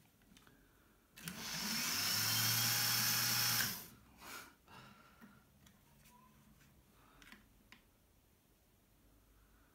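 Brushed DC motor of an opened 12-volt cordless drill spinning up when the trigger switch is pressed, running steadily for about two and a half seconds and then stopping, with a brief second blip just after. The motor, which had tested as shorted and burnt out the day before, is running.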